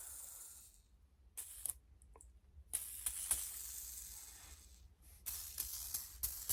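Worn rear ball bearing from a nitro RC engine spun by hand: a faint hissing rasp with small ticks, in several spins that each run down. The rough noise is the sign of a bad bearing.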